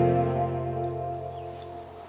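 Background music of long held chords fading out, with a few bird chirps coming in near the end.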